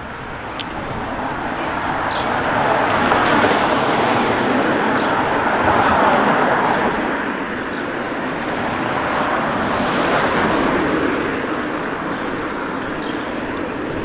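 Traffic on a town street: cars driving past, their tyre and engine noise swelling and fading three times, loudest about three, six and ten seconds in.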